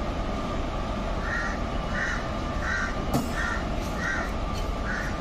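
A crow cawing in a series of six evenly spaced caws, over the steady hum and rumble of slow-moving electric locomotives, with one sharp clank about three seconds in.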